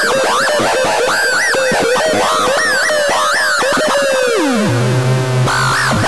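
A circuit-bent toy steering wheel, played as a dub siren through an echo effect: fast warbling siren swoops rise and fall over and over, their echoes piling up with clicks. About four and a half seconds in, the pitch slides down and a steady low buzz comes in under stepped, falling echo tones.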